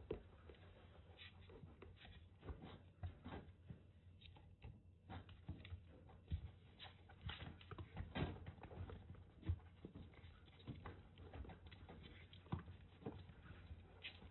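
Kittens' paws pattering and scuffling on a floor mat as they play and wrestle: faint, irregular soft taps.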